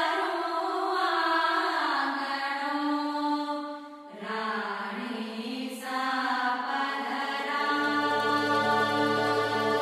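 Slow, beatless music accompanying a traditional Indian stage dance: long held notes that glide gently from pitch to pitch, chant-like in character. The music thins briefly about four seconds in, and a deeper held drone note joins near the end.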